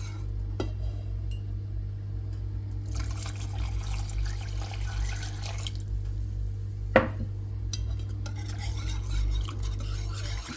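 Wire whisk stirring béchamel sauce in a pan, with soft wet scraping, a sharp clink against the pan about seven seconds in, and a steady low hum underneath.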